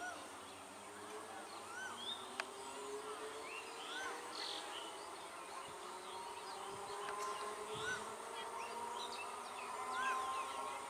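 Faint whine of an approaching electric multiple-unit local train, slowly rising in pitch. Short bird chirps repeat over it every second or two, and there is a single sharp click a couple of seconds in.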